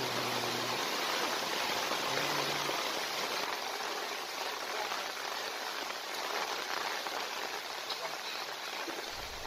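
Heavy rain falling, a steady even hiss that cuts off abruptly at the end.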